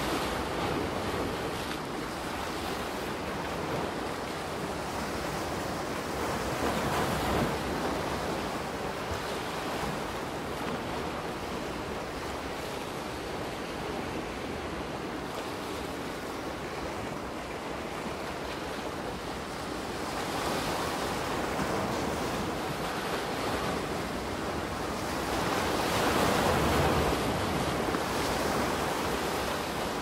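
Soft ocean waves washing onto a beach: a continuous surf wash that swells about 7 seconds in, again around 20 seconds, and most strongly about 26 seconds in.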